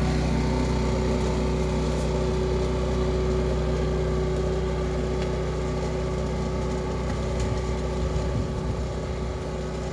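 Leaf vacuum's 8 hp Honda single-cylinder petrol engine running steadily at constant speed with a steady tone, growing slightly quieter toward the end.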